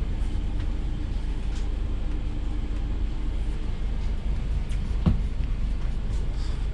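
Steady low rumble of a locomotive-hauled passenger coach running on the rails, heard from inside the coach, with a faint steady hum that fades out about halfway. A single sharp click comes about five seconds in.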